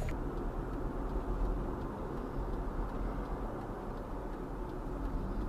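Steady low road and engine rumble of a car driving, heard from inside the car by its dashcam.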